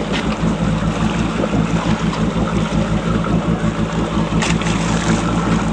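Fishing boat's engine running with a steady low hum under wind and water noise, with a couple of brief knocks, one at the start and one about four and a half seconds in.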